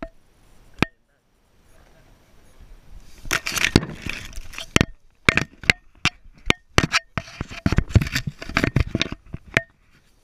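Tall grass rustling and brushing against a hand-held camera, with a string of sharp snaps and cracks from about three seconds in.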